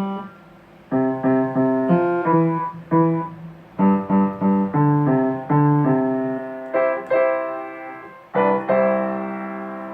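Keyboard music, sounding like piano: a melody of separate struck notes with a short pause about a second in. It ends on a chord a little over eight seconds in that rings on and slowly fades.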